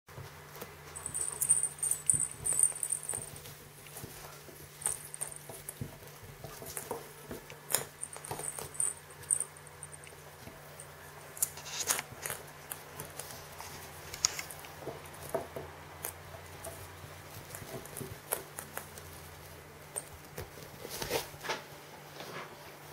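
A ferret scampering around a fabric play tunnel: pattering paws, rustling fabric and scattered sharp clicks and knocks. There are two short spells of a high jingle, one about a second in and another near the middle.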